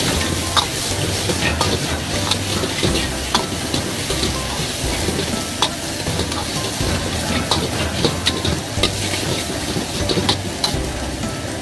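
Shrimp stir-frying in oil in a wok: a steady sizzle, broken by irregular clinks and scrapes of a metal ladle against the wok, roughly one a second.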